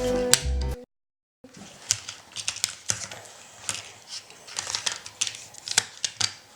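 Background music ends a moment in and cuts off to silence. Then come irregular light clicks and clattering of small plastic toys being handled.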